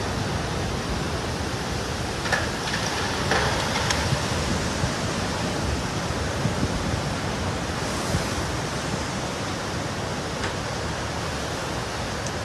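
Tsunami surge rushing in over the shore and around houses: a steady noise of fast, churning floodwater, with a few faint knocks in the first few seconds.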